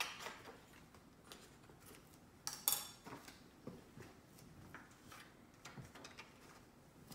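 A pen writing and tapping on the wrapping paper of a boxed present, with scattered small clicks and scratches and a sharper click a little under three seconds in.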